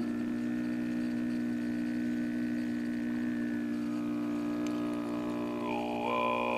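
Overtone throat singing: a steady low drone with a thin whistling overtone above it. The overtone slides and fades through the middle, then jumps to a new, higher whistle near the end.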